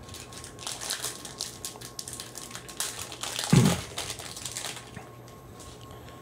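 Foil trading-card pack crinkling and tearing open by hand, a run of crackles and rips with the loudest burst about three and a half seconds in.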